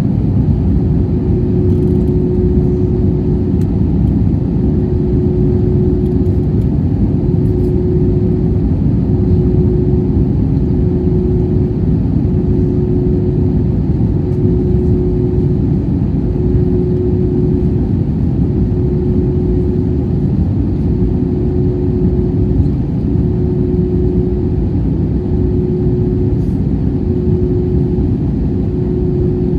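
Steady cabin noise of an Airbus A320-232 in flight, heard from a window seat over the wing: a low rumble of airflow and its two IAE V2527-A5 engines, with a hum that pulses about every two seconds.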